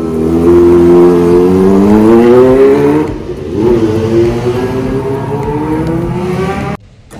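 Kawasaki ZX-25R's 250cc inline-four engine revving hard under acceleration, its pitch climbing steadily, dropping back about three seconds in, then climbing again. It cuts off abruptly near the end.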